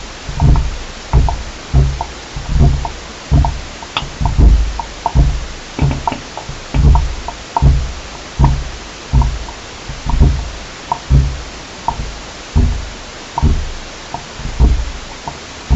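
Rhythmic low thumping from underground, a little more than one beat a second, each beat with a short click, over a steady hiss. The recordist takes it for engine machinery working in a tunnel beneath the ground.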